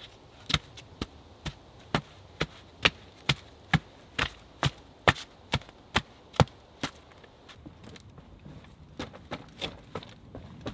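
Butt of a wooden pole driven repeatedly into the ground, tamping the loose backfill around a post set in a dug hole: a steady run of sharp knocks about two a second, pausing and coming back softer near the end.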